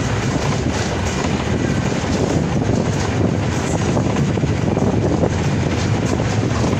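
Steady rumble of a bus on the move, heard from inside the cabin: engine and road noise with the body rattling. The front door stands open, so the noise of the road comes straight in.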